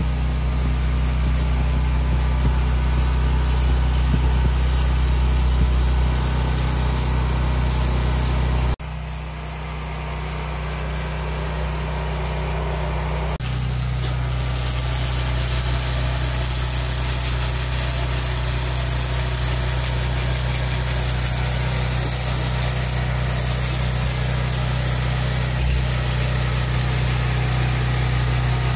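Pulsed laser cleaning machine running as it strips paint and rust from a cast-iron gear case: a steady low hum with a hiss over it. The sound drops abruptly about nine seconds in and changes again about four seconds later.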